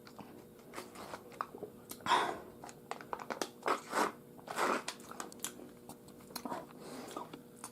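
Faint, irregular soft crunches and clicks close to the microphone, over a low steady hum.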